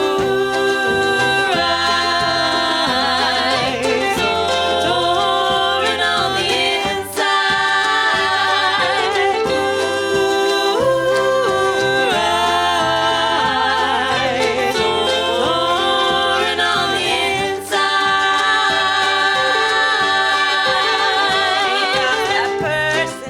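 Multi-piece band playing a song live, with voices singing in harmony over a bass line.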